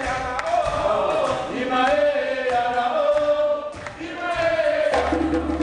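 A group of voices singing a chant together, with scattered sharp percussive hits behind them. A low steady hum comes in near the end.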